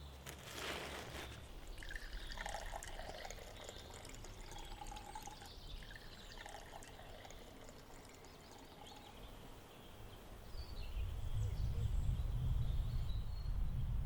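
Water pouring and trickling, with a short splash-like burst about half a second in. From about ten seconds in, a low rumble of wind buffeting the microphone takes over.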